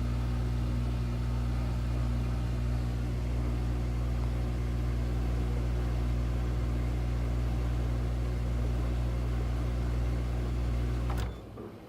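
Washing machine motor humming steadily with a strong low hum, on a washer that won't spin; it cuts off abruptly with a click near the end.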